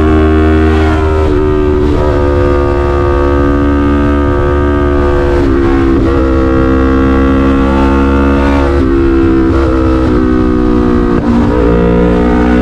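Yamaha MT-03's 321 cc parallel-twin running hard through an SC-Project full exhaust at highway speed. The engine note climbs slowly and dips or shifts in pitch briefly about four times as the throttle is rolled off and back on.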